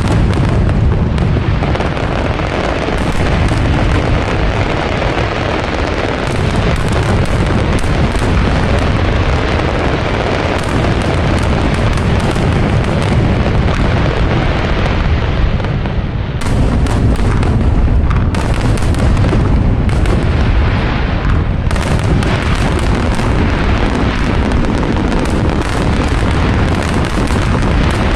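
Aerial fireworks shells bursting in a dense, unbroken barrage. The booms overlap into a continuous rumble, with many sharp cracks throughout.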